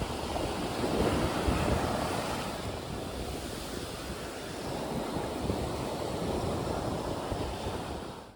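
Sea waves breaking and washing on the shore, swelling and easing, with wind buffeting the microphone.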